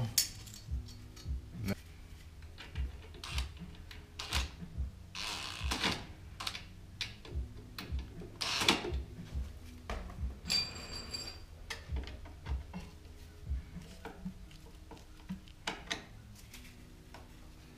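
Hands fitting a metal clamp over fiberglass exhaust wrap on a motorcycle header pipe: scattered clicks, small knocks and rustles of the clamp and wrap, with a short rasp about halfway through. A steady low hum runs underneath.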